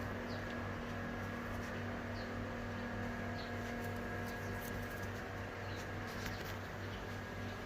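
A steady mechanical hum, with faint short high chirps about once a second and a few light clicks over it.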